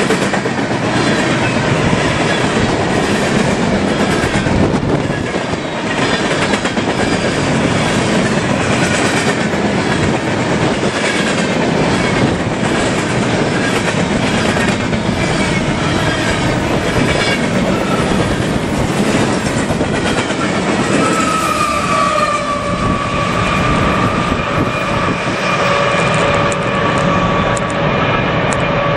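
Freight train cars rolling steadily past, the wheels clicking rhythmically over the rails. About two-thirds of the way through, a steady high-pitched wheel squeal joins in and holds to the end.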